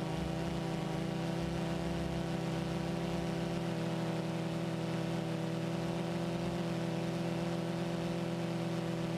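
Multirotor drone's motors and propellers giving a steady, even hum with several pitches layered together, heard from the camera on board.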